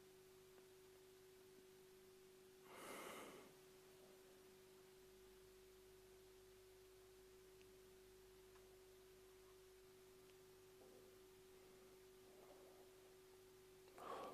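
Near silence: quiet room tone with a faint steady hum-like tone, and a single soft breath or sigh about three seconds in and another near the end.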